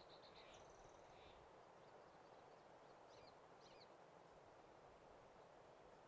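Near silence: a faint steady hiss with distant birds chirping faintly. A few quick notes and a short high trill come in the first second or so, then two brief chirps about three seconds in.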